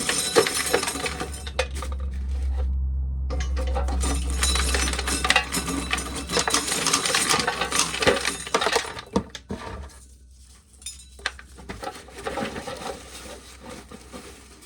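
Dry corn kernels being shelled off the cob, rattling and clinking as they fall, with a dense run of small clicks that thins out after about nine seconds. A low steady hum runs underneath and stops about eight seconds in.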